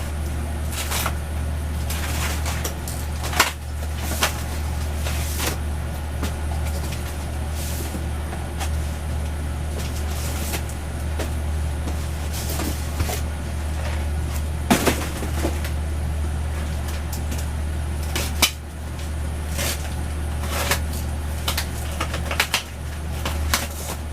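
Cardboard boxes and packaged fidget toys being handled: scattered knocks, thuds and rustles over a steady low hum.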